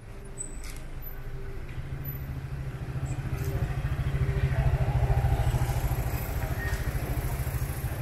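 A motor vehicle's engine running close by with a low, rapidly pulsing rumble. It grows louder to a peak about five seconds in, then eases off.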